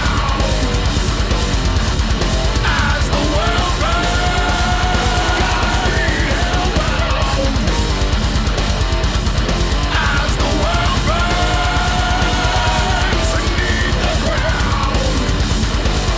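Heavy metal music: distorted guitar and fast drums, with a held lead guitar melody that repeats every few seconds.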